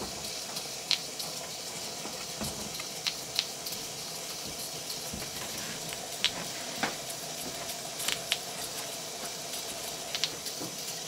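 Stuart Progress oscillating ('wobbler') steam engine running on live steam: a steady hiss of steam with irregular sharp clicks about once a second.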